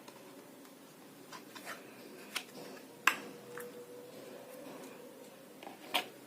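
A few scattered sharp clicks and light knocks, the loudest about three seconds in and another near the end, over a faint steady hum.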